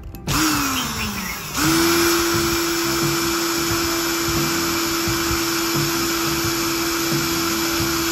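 A small electric motor whines as it starts, then slows down over about a second. It starts again and runs at a steady high whine.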